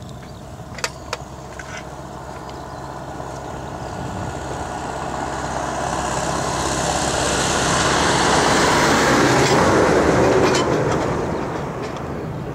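Jet noise from the twin turbofan engines of an Airbus A300-600 airliner on final approach, growing steadily louder for several seconds, peaking about ten seconds in, then falling away. There are a couple of sharp clicks about a second in.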